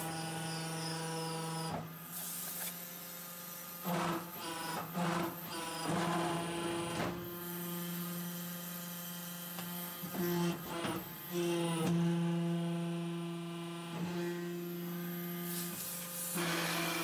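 Hydraulic soil interlocking brick press running with a steady hum, broken several times by short noisy surges as the machine cycles and pressed bricks are pushed out onto the steel table.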